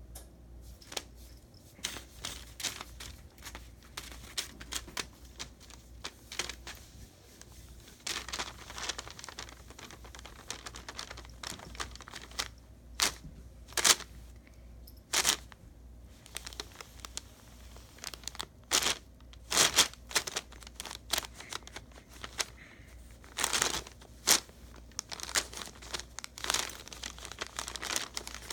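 Tissue paper crinkling and rustling in irregular bursts as cats paw, pounce on and bat at it, with a few louder crackles now and then.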